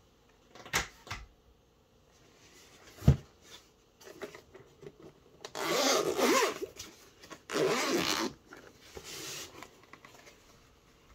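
A few knocks as a fabric-covered hard-shell carrying case is handled and set down on a desk, the sharpest about three seconds in. Then its zipper is pulled open around the edge of the case in two long strokes and a shorter one.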